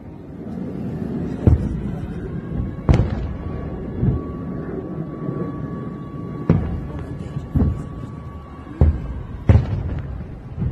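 Rocket interceptions exploding in the sky over a city, a series of about eight sharp booms a second or so apart, some followed by a rolling echo, over a steady low rumble.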